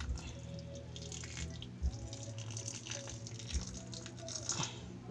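Water being dripped and splashed by hand onto the substrate of a tarantula enclosure, a scatter of small drops with a few sharper ones, over a steady low hum.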